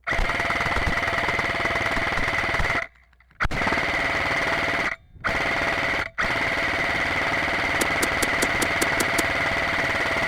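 Airsoft electric rifle firing on full auto in long sustained bursts, with a steady motor whine under the rapid rattle. The firing breaks off sharply three times in the first half, and a quick run of about eight sharp clicks comes through near the end.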